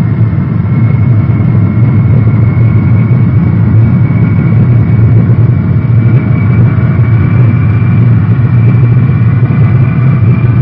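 Lockheed C-5A Galaxy's four GE TF39 turbofan engines at takeoff power during the takeoff roll: a steady, loud roar with a high whine that rises slightly in pitch as the aircraft gathers speed.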